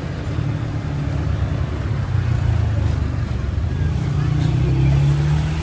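A motor vehicle's engine running close by, a loud, steady low rumble.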